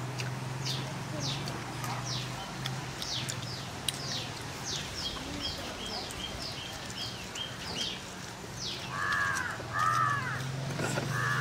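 Birdsong: a small bird gives rapid, repeated high chirps that sweep downward, and from about nine seconds in crows caw a few times. A low steady hum runs beneath.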